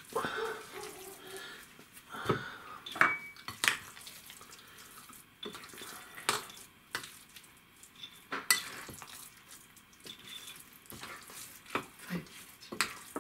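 Soft wet semolina dough being mixed in a glass bowl by hand and with a metal spoon: a low scraping and rubbing, broken by scattered sharp clinks of the spoon against the glass, a few ringing briefly.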